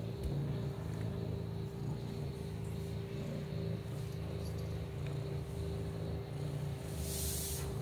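Ginger kitten purring steadily and close up while being stroked, with a short rustle near the end.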